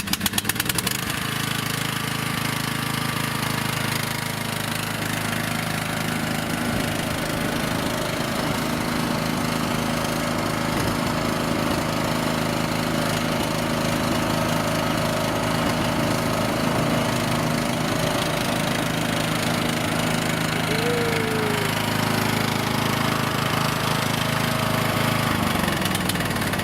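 Bolens riding lawnmower engine starting up and then running steadily as the mower is driven.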